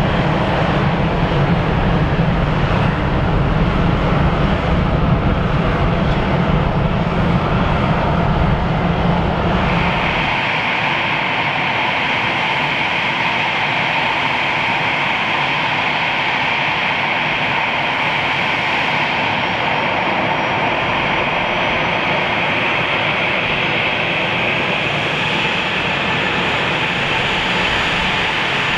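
Airbus A320's CFM56 jet engines at taxi idle. A low rumble is heard first. About ten seconds in it changes abruptly to a steady high whine with a fainter hum beneath.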